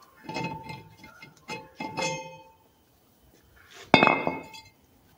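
A cast-iron brake rotor clanks and rings as it is worked off the wheel hub: several knocks in the first two and a half seconds. About four seconds in comes the loudest clang, a sharp strike with a half-second ring, as the rotor is set down on the concrete floor.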